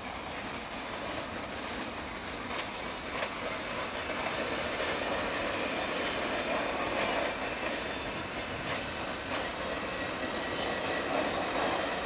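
SNCF Z 7300-series (Z2) electric multiple unit moving slowly along the station tracks on a shunting move: steady running noise of its traction equipment and wheels on the rails, a little louder from about four seconds in, with a few faint clicks.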